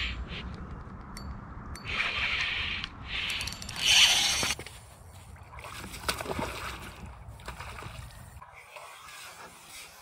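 Water splashing in several short bursts, the loudest about four seconds in, as a hooked fish thrashes at the surface.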